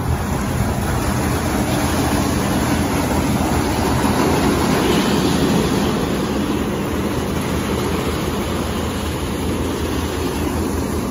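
Ryko SoftGloss Maxx automatic car wash running: spinning cloth brushes scrubbing a pickup truck amid water spray, over a steady machine hum. It gets louder for a couple of seconds near the middle as the brushes work close along the truck's side.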